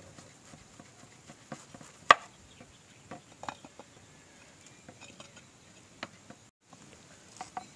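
Scattered knocks and taps of a knife cutting through a pineapple onto a wooden chopping board and a wooden masher pounding fruit in a clay pot, with one sharp knock about two seconds in.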